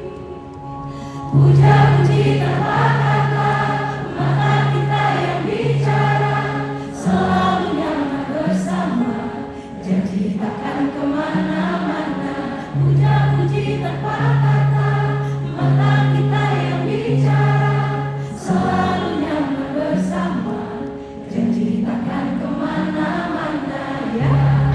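Live pop band performance with a female lead singer, the audience singing along in many voices over a steady bass line.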